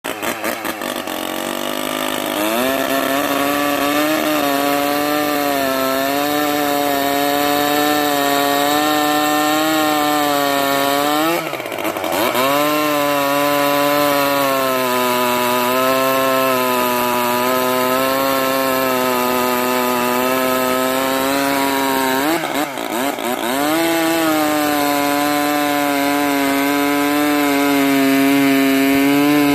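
Sachs Dolmar KMS-4 chainsaw with its Wankel rotary engine, starting up and revving to full throttle about two seconds in, then running high and steady while cutting through a large timber beam. Its engine note dips and recovers twice, about a third and three-quarters of the way through.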